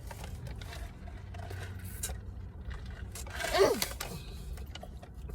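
Low steady hum of a car interior, with faint scrapes and clicks and one short falling vocal sound about three and a half seconds in.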